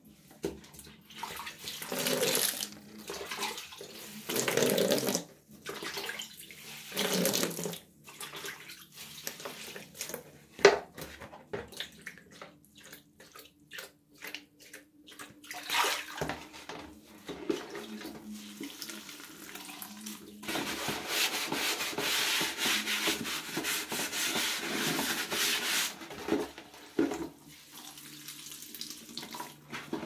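Water sloshing and splashing as a plastic tub is rinsed and emptied into a bathroom sink, with short knocks and clicks of the tub being handled, one sharp knock about a third of the way in. In the second half a tap runs steadily for several seconds.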